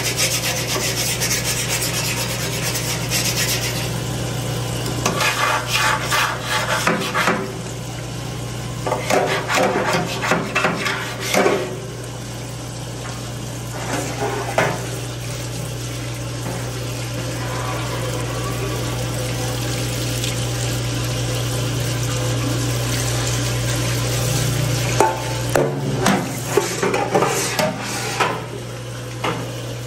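Stiff long-handled brush scrubbing and scraping the bottom of a stainless steel deep-fryer vat in irregular strokes, heaviest in the first half, over the steady low hum of a cooking-oil filtration machine's pump.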